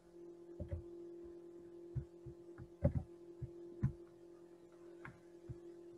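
A steady low hum with about ten soft, irregular thumps and knocks scattered through it.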